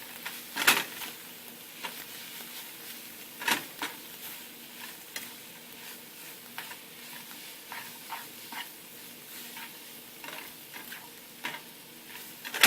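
Ramen noodles, spinach and salsa being stirred together in a hot frying pan: steady sizzling with the utensil scraping and knocking against the pan. The loudest knocks come less than a second in and about three and a half seconds in, with lighter ones later.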